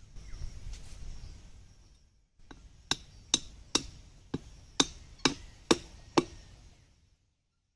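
A jackfruit struck repeatedly: about nine sharp knocks, roughly two a second, dealt to the fruit to make it ripen faster.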